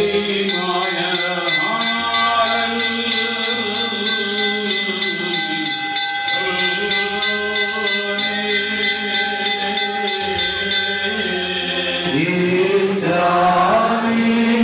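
A man chanting a Syriac liturgical hymn through a microphone, with long held notes that glide slowly in pitch. A steady sustained tone accompanies the chant.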